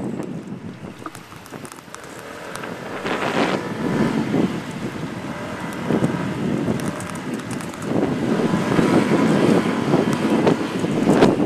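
Wind buffeting the microphone of a camera moving through city streets, over a low vehicle rumble. It drops away briefly about a second in, then builds and gusts unevenly.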